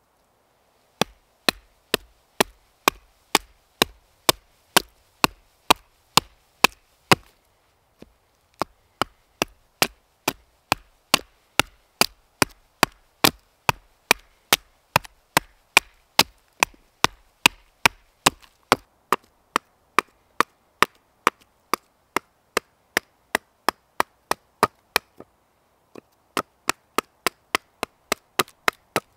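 Small axe chopping wood in quick, regular strokes, about three sharp cracks a second. It stops briefly twice, about seven seconds in and again near the end, then goes on.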